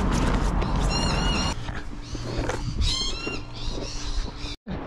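A low rumble that stops about a second and a half in, with two short high-pitched animal calls, one about a second in and a quicker run of falling notes about three seconds in.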